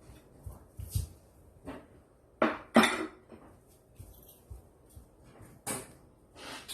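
Dishes and cutlery clattering as they are handled and set down: a handful of separate knocks and clinks, the loudest two in quick succession about two and a half seconds in and another near six seconds.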